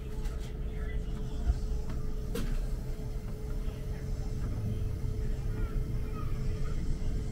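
Electric commuter train heard from inside, running along the track: a steady low rumble with a constant thin hum over it, and one sharp click about two and a half seconds in.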